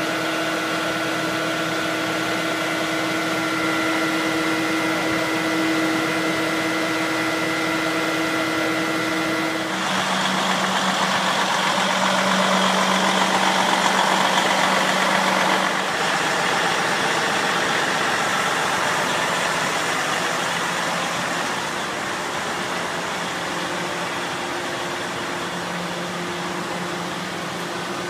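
Heavy truck engines idling, a steady hum with an even hiss that grows louder between about ten and sixteen seconds in.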